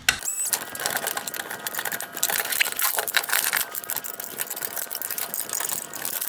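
A driver backing out the T20 Torx screws that hold the LED light bar in a plastic headlight housing, with steady, rapid mechanical clicking and rattling.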